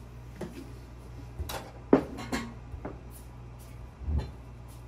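A cat nosing at and brushing against a phone camera lying on the floor: a few light clicks and knocks, the sharpest just under two seconds in, and a soft low thump a little after four seconds in, over a steady low hum.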